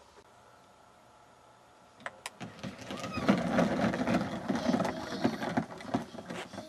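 Plastic ride-on toy car rolling and rattling over grass, starting with a click about two seconds in and fading near the end.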